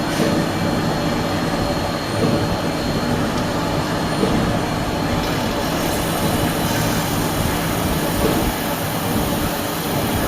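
Milling machine running steadily, a continuous loud mechanical noise with no pauses.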